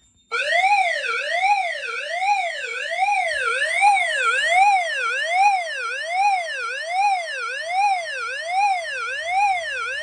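Agent release alarm signal played through a Wheelock E70 speaker strobe: a loud electronic siren tone sweeping steadily up and down, about three sweeps every two seconds, starting a moment in. It signals that a suppression-agent releasing system has been activated.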